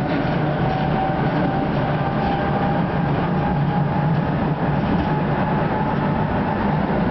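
Tatra T5C5 tram running, heard from inside the passenger saloon: a steady rumble of the wheels on the rails, with a faint whine that slowly rises in pitch.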